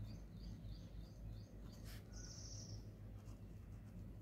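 Faint scratching of a pen writing on paper, with a few short strokes standing out about two seconds in, over a low steady hum and repeated faint high chirps.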